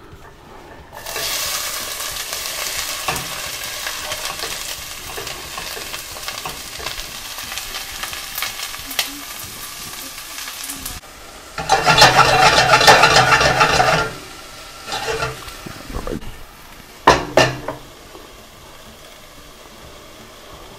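Diced onion and bell pepper sizzling as they hit hot olive oil in a stainless steel pan. The frying grows much louder for about two seconds midway, then a few short knocks follow and the sizzle settles down to a soft hiss.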